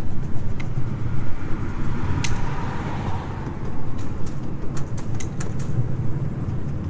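Open cars of a miniature train rolling along the track: a steady low rumble of wheels on rail, with scattered sharp clicks and clacks, more of them in the second half.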